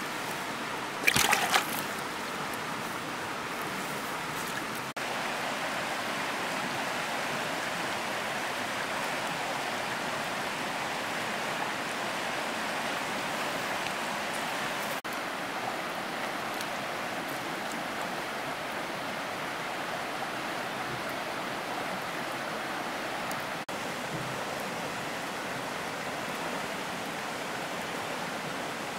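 Steady rush of running water, with a brief louder burst about a second in.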